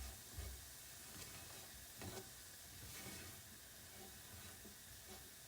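Faint sizzling of onions and potatoes cooking in a pan with flour worked in, with a few soft knocks.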